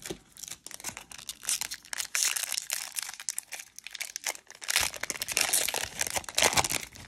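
Foil wrapper of a 1993 Donruss baseball card pack crinkling and tearing as it is ripped open by hand. A dense crackle, loudest about two seconds in and again near the end.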